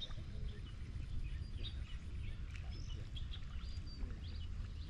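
Birds chirping outdoors, many short, scattered calls and brief whistles, over a steady low rumble of background noise.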